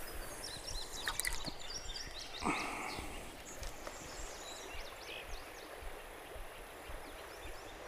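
Quiet riverside ambience with faint high chirps and small ticks, and one short, slightly louder soft sound about two and a half seconds in.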